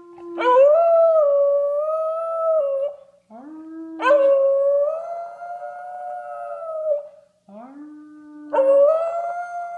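American Bully puppy howling three times, each long howl held at a fairly steady pitch. Each howl is preceded by a short, lower note.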